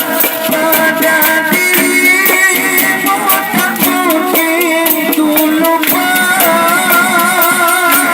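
Music: a song with a wavering melody line over steady percussion.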